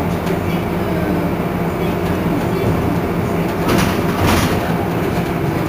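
Iveco Crealis city bus underway, its drive giving a steady hum with a few held tones, and a brief hiss about four seconds in.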